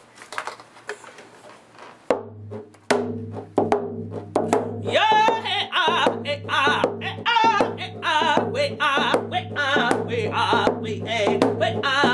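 Rawhide hand drum beaten with a drumstick in a steady beat that starts about two seconds in. A man's high, wavering singing of round-dance vocables joins a couple of seconds later.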